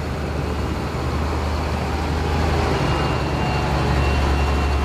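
Low, steady engine rumble of a heavy vehicle, growing slightly louder, with a faint thin whine joining about three seconds in.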